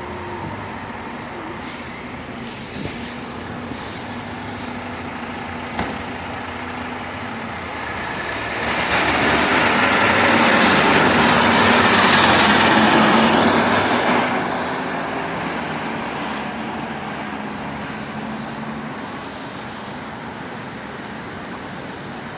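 Fire trucks' diesel engines running as the apparatus pull away, with a few sharp clicks and hisses early on. One truck's engine and tyres grow loud as it passes close, about nine to fourteen seconds in, then fade as it drives off.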